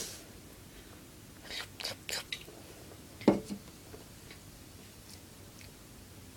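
A few short mouth and throat noises from a person: soft clicks about two seconds in, then a brief, louder throaty sound a little past three seconds in with a smaller one just after.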